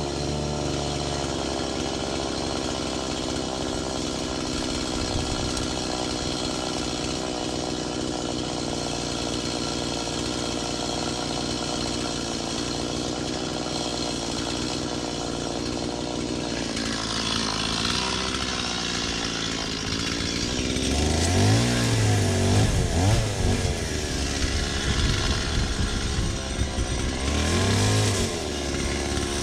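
Two-stroke chainsaw engine running steadily, then revved up and down repeatedly about two-thirds of the way in and once more near the end.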